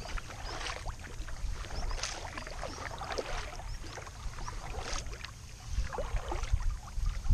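Kayak paddle strokes: the blades dipping and pulling through the water with splashing and dripping about once a second, over water lapping along the hull and a steady low rumble.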